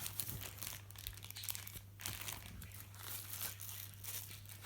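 Plastic packaging bags crinkling and rustling in irregular crackles as the boxed items are handled and unwrapped, over a steady low hum.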